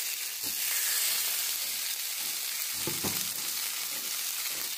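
Masala-coated mackerel fillets sizzling in hot oil on a flat tava, the frying hiss swelling a little about half a second in. A few light knocks as a second fillet is laid on the pan.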